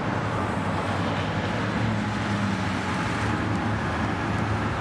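Steady road-traffic noise, an even rush with a low engine hum underneath.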